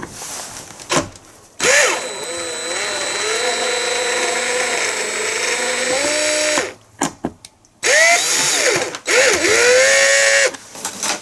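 Cordless drill with a screwdriver bit turning the screws of a bus ticket-machine base plate, in two runs: one of about five seconds, then a shorter one. The motor whine climbs in pitch as each run starts.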